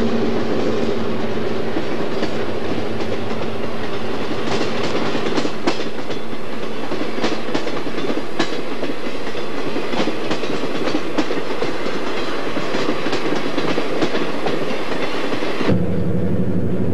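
Streamlined passenger train passing close by, its wheels clattering over rail joints in a rapid, irregular run of clicks. Near the end the sound changes abruptly to the low drone of an approaching diesel locomotive.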